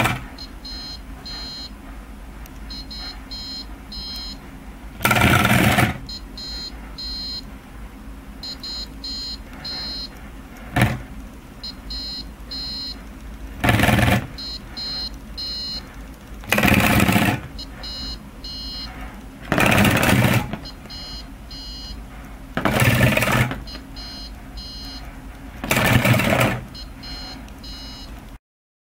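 Small DC vibration motors with off-centre weights on their shafts running in six bursts of about a second each, buzzing and rattling the wire-legged robot, between groups of quick high-pitched electronic beeps. There is also a single sharp click.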